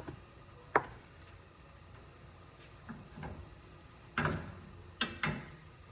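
Spatula and frying pan knocking and clattering as the pan is handled on the stove: one sharp knock about a second in, then a run of short knocks from about three to five seconds in.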